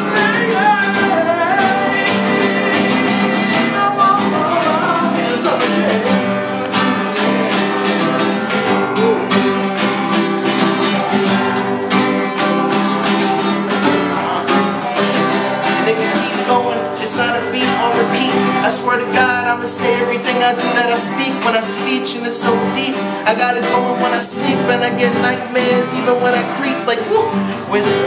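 Acoustic guitar strummed steadily, with a voice singing over it.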